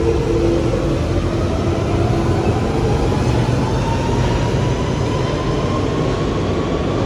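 London Underground Central line 1992 stock train accelerating away from the platform. Its traction motor whine climbs steadily in pitch over a loud low rumble of wheels on track.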